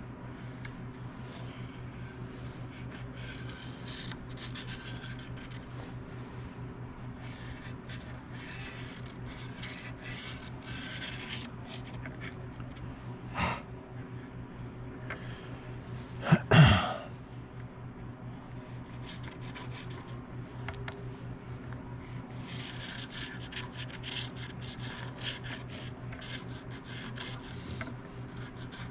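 Scraping strokes of a hand file on a workpiece, in spells, over a steady machine hum. A sharp knock comes about halfway through, and a louder clank with a short falling ring follows a few seconds later.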